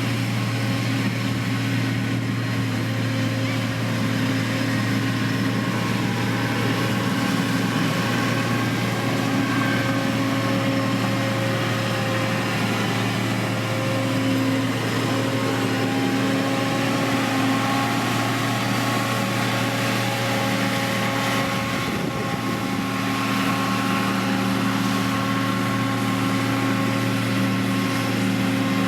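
Diesel engine of heavy road-building machinery, a motor grader or road roller, running steadily under load. It is a constant low hum with a few steady higher tones above it and a brief slight dip about two-thirds of the way through.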